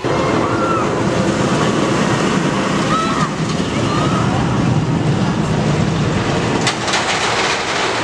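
D. H. Morgan steel hypercoaster train running along its track: a steady, loud rushing rumble of wheels on steel rail. A few faint short cries are heard early on, and a brief clatter about seven seconds in.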